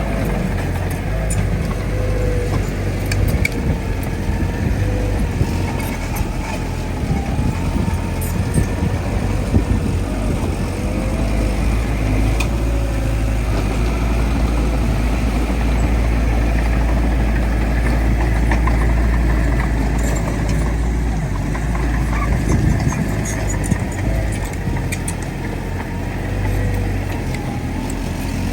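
Heavy diesel earthmoving machinery, a bulldozer working with dump trucks, running steadily under load. It makes a continuous low engine rumble with a faint wavering whine above it and scattered small clanks.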